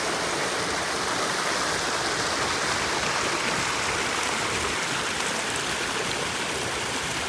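Creek water rushing over rocks: a loud, steady, even rush that cuts off abruptly near the end.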